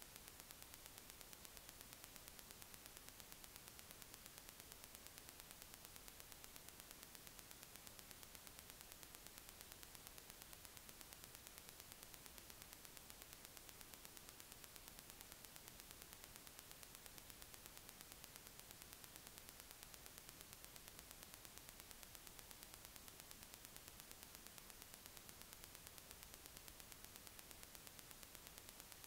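Near silence: a faint, steady hiss of recording noise.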